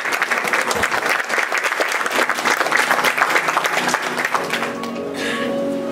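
Audience applauding, a dense patter of many hands clapping that fades after about four seconds as music with held notes comes in.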